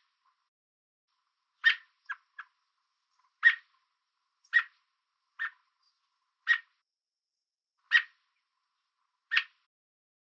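American robin giving sharp, repeated single-note calls, about one every second, with a couple of softer short notes among them. The uploader takes it for the robin warning an intruder to stay away.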